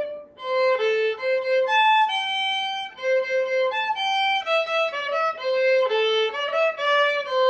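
Violin playing a melody one note at a time, in short phrases of held notes with brief breaks between them.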